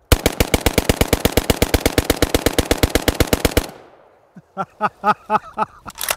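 FN FNC 5.56×45 semi-automatic rifle bump-fired from the hip with only the trigger finger: an unbroken string of rapid shots, roughly ten a second, lasting about three and a half seconds before stopping.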